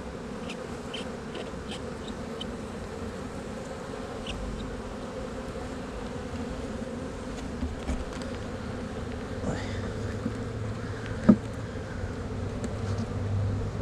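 Many honeybees buzzing steadily in the air around an open hive, agitated after being shaken out of a nuc box. A single sharp knock sounds near the end.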